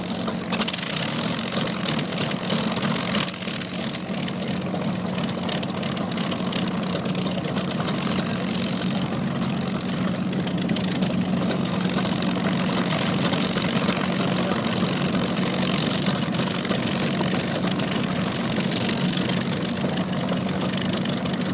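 An engine running steadily at a constant low pitch, over a steady hiss of background noise.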